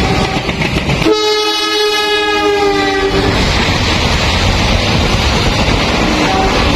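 Train horn sounding loudly: one blast fades out just after the start, then a stronger blast of about two seconds begins about a second in, its pitch sagging slightly. It is followed by the steady rumble and rush of a passing train.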